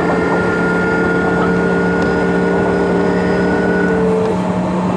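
Sotetsu New 7000 series EMU car (MoHa 7357) running slowly, heard from inside the car: its Hitachi GTO-thyristor VVVF inverter and traction motors give steady tones over the wheel-and-rail rumble. The higher tones cut off about four seconds in.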